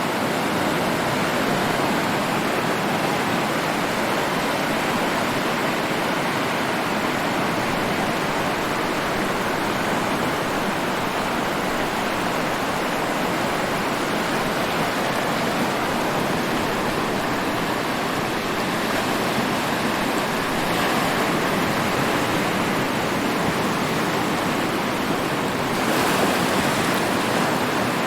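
Ocean surf: a continuous wash of breaking waves, steady throughout, swelling slightly near the end.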